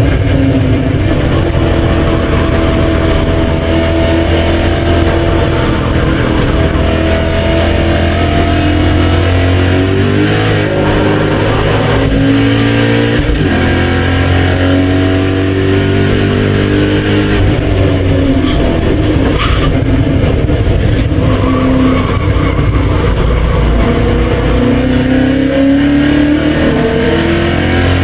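BMW M5 E39's 4.9-litre V8 driven hard on a race track, its note climbing and dropping several times as the revs rise and fall through the lap.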